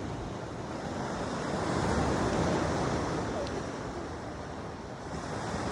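Sea surf washing onto a pebble beach, the wash swelling about two seconds in and easing off toward the end.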